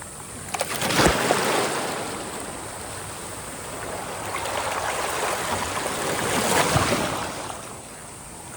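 Sea waves washing onto the shore. Two waves break and surge, one about a second in and a louder one near the end, with the steady wash of the surf between them.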